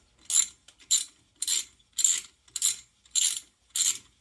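Hand ratchet with a socket running lug nuts down, the pawl clicking in a quick rasp on each back-swing, about two strokes a second.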